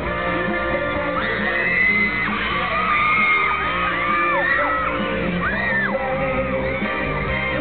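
Closing song playing loudly through a hall PA, with many short, high, rising-and-falling screams and yells from the crowd over it.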